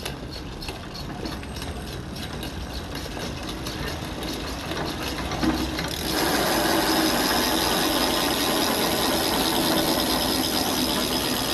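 Freewheel clicking of a Maxzone sealed-bearing bicycle hub with 3 pawls as the wheel spins: a rapid ratcheting tick. About six seconds in the clicking turns denser and louder, as if the wheel were spun faster.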